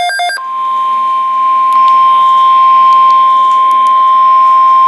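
Weather radio alert tone: the last pulses of a rapid pulsing beep, then a single loud, steady tone near 1 kHz, the NOAA Weather Radio 1050 Hz warning alarm tone that signals an alert broadcast is about to follow.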